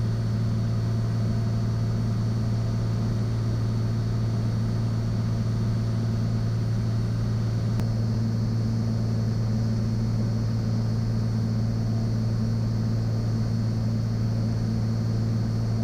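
Cessna 182 Skylane's piston engine and propeller droning steadily in flight, heard inside the cabin.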